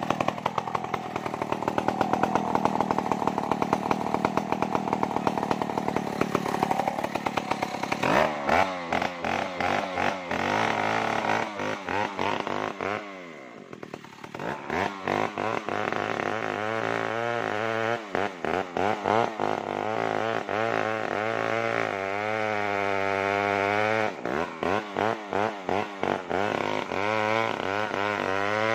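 Large two-stroke chainsaw, a locally assembled copy of the Stihl 070, running hard and then cutting into a tree trunk. Its engine speed rises and falls under the load, drops almost to a stall about 13 seconds in, picks back up, and dips again in quick repeated stutters.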